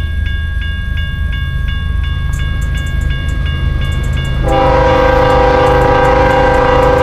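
Railroad crossing bell dinging about three times a second over a low rumble of the approaching train. About four and a half seconds in, the lead locomotive's multi-chime air horn sounds one long blast that drowns out the bell.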